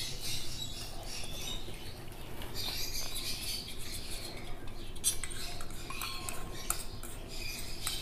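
Baby bird making faint, squeaky begging chirps while being hand-fed formula from a syringe, with a few light clicks in the second half.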